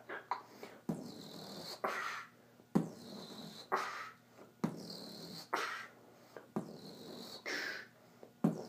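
Beatboxing a slow, steady beat: a low kick, then a held hiss and a sharper snare-like hit, repeating about every two seconds, five times.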